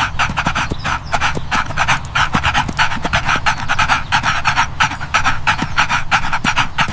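A dog panting rapidly and steadily, about six quick breaths a second.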